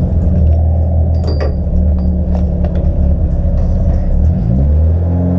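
Opel Corsa track car's engine idling, heard from inside the cabin, with a brief rise in revs about four seconds in. A few sharp clicks sound around a second in.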